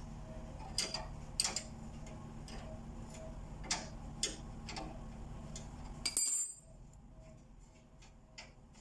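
Steel spanner clicking and clinking on a nut on a cast-iron sewing machine treadle as the nut is loosened in short turns, with irregular clicks about every half second and a louder ringing clink about six seconds in.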